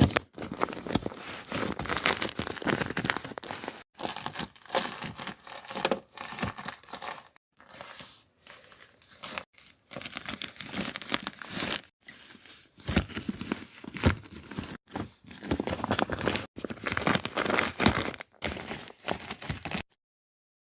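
Paper squishies being squeezed and handled: paper crinkling and crumpling, in a run of short clips that cut in and out abruptly.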